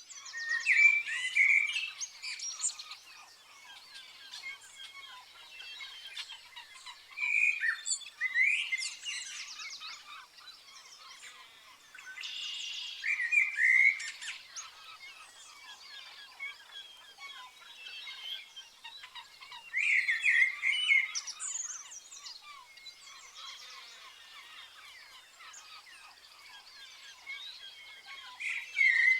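A chorus of songbirds chirping and singing. A louder song phrase comes every six or seven seconds over many softer, more distant chirps.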